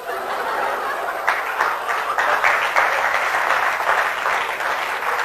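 Audience applauding: a dense patter of many hands clapping that starts at once and holds steady.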